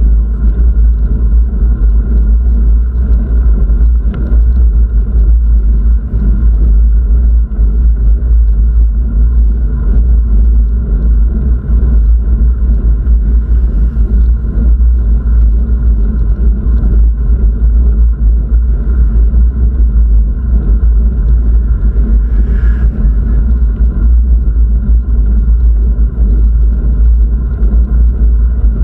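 Steady, loud low rumble of wind and road noise on the microphone of a camera on the move.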